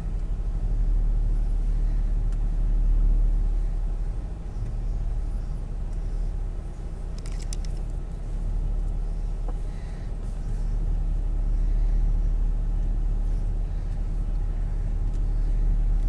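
Steady low rumble of a vehicle heard from inside its cab, its engine running. A short rattle of clicks comes about seven seconds in.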